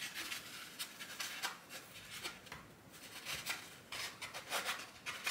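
Styrofoam helmet liner rubbing and scraping against the inside of a helmet shell as it is worked into place, in short irregular scrapes.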